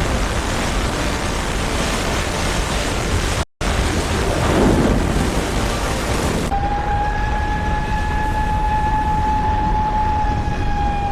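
A loud, steady rushing roar, like heavy rain or storm noise, broken by a split-second gap about three and a half seconds in. About six and a half seconds in it gives way to a siren holding one steady wailing tone over fainter background noise, its pitch sinking slightly near the end.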